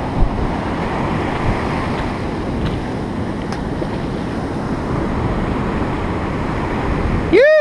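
Ocean surf washing on the beach, with wind buffeting the microphone: a steady rushing noise. Right at the end, a short loud tone rises and then falls in pitch.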